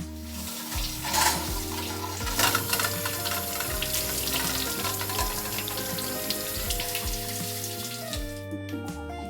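Water running steadily, stopping about eight seconds in, under background music.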